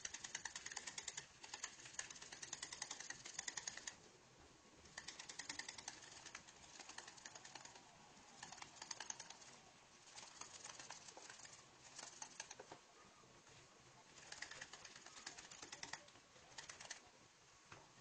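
Faint, rapid clicking of a whisk beating butter and condensed milk in a bowl by hand, in spells of a second or a few seconds with short pauses between them: the butter being creamed into a buttercream frosting.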